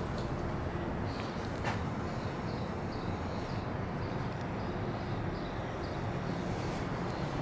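Outdoor city ambience: a steady low rumble of distant traffic, with faint short high chirps recurring and a couple of small clicks.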